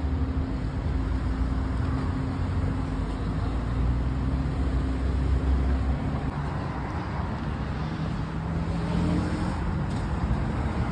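City road traffic: a steady rumble of cars and motorbikes. An engine hum holds one pitch for about the first half, and another comes in briefly near the end.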